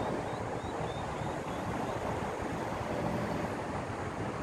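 Wind rumbling on the microphone as a steady noisy wash, with a few faint high chirps in the first second or so.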